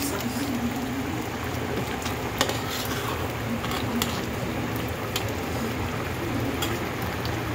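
Thickened sauce bubbling at the boil in a wok, with a metal spoon clinking against the pan a few times as the beef chops are stirred.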